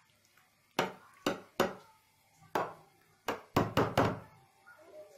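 A spoon knocking against a metal baking tray while macaroni is spread and pressed into it: about eight sharp knocks, the last four in quick succession.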